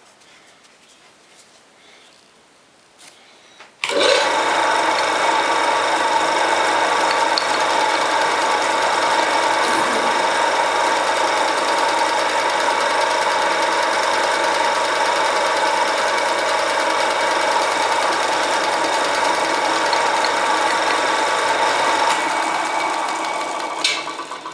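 Mini lathe with a 750 W (1 hp) single-phase motor switched on about four seconds in and running at a steady speed with its 160 mm three-jaw chuck and workpiece spinning. It is a loud, even machine sound with a strong steady tone that fades near the end.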